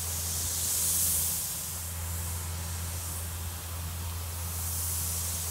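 Pop-up rotor sprinkler head spraying a hissing mix of compressed air and water mist as the irrigation line is blown out for winter. The hiss swells about a second in and then eases, over a steady low hum.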